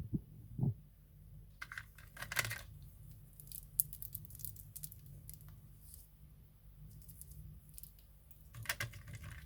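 Light clicks, taps and short rustles of small craft tools and materials being handled on a work surface, with one sharper tick about four seconds in.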